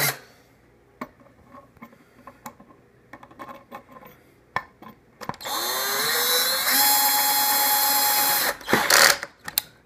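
Power drill with a hex bolt-driver bit driving a washered bolt into a table leg: it spins up with a rising whine about five seconds in, runs steadily for about three seconds, stops, and is followed by a brief loud clatter. Faint handling clicks come before it.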